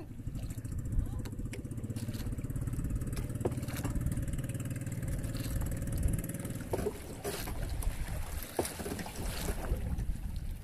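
Small outrigger boat engine running steadily, with wind and sea noise. About two-thirds in, the engine's steady note fades and a few sharp knocks and clatters come.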